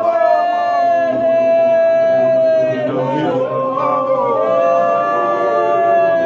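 A congregation singing a hymn together without instruments, many voices holding long notes and moving to new ones together.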